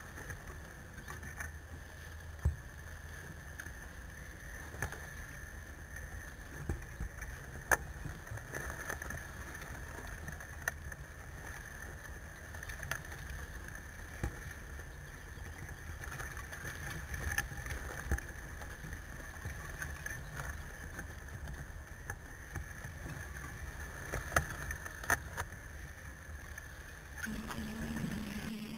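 Mobility scooter driving over rough, overgrown ground: a steady high whine from its electric drive over a low rumble, with scattered knocks and rattles as it jolts along. Near the end this gives way to a steadier low hum.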